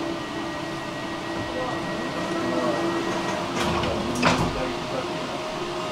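Tram running along the track, with steady electric drive hum over running noise and two sharp knocks a little past halfway.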